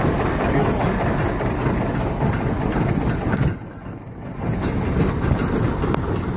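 A tractor engine running steadily while it drives a John Deere manure spreader's apron chain and unloader bars. The sound drops away for about a second a little past halfway, then comes back.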